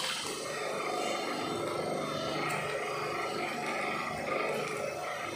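Twin-shaft shredder running under load, its cutter blades tearing through plastic shampoo and lotion sachets. It is driven by a 5000-watt electric motor through a WPA 120 worm gearbox, giving a steady hum under the dense crunching of the plastic.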